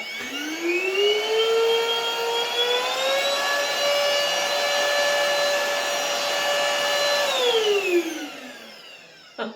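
Cordless stick vacuum cleaner's motor switched on and whining up in pitch, stepping up to a higher pitch about three seconds in and running steadily, then switched off and winding down near the end.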